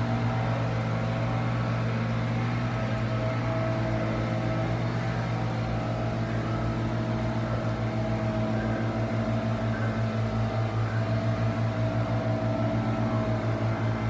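A machine running with a steady low hum and a faint regular throb.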